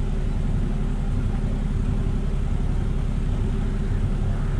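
Canal trip boat's inboard engine running steadily at slow cruising speed, a low even hum.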